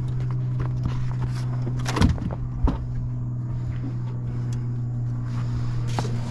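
Steady low hum of a boat's motor running, with scattered knocks and thumps as a fish is handled in a landing net on the boat's deck. Two louder thumps come about two seconds in.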